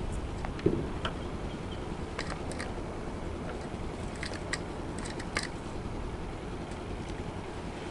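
Scattered light clicks and taps of wire clips and fence-charger hardware being handled and connected, with one sharper thump early on, over steady low background noise.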